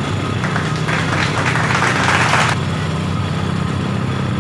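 Boat engine running steadily, heard from on board. About a second in, a rushing hiss joins it for about a second and a half.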